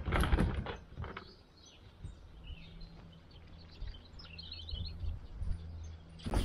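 Small birds chirping in short, scattered calls over a faint steady outdoor hum, after a brief burst of rumbling noise in the first second.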